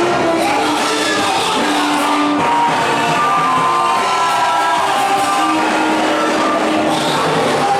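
Worship music with many voices singing together, with shouts from the crowd.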